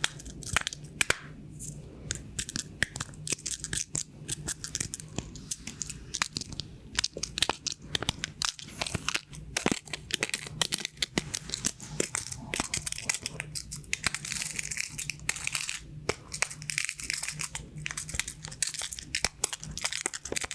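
Pin-art toy's pins clicking and rattling as they are pressed and slide in their frame: a dense, irregular run of small clicks and crackles, with a low steady hum underneath.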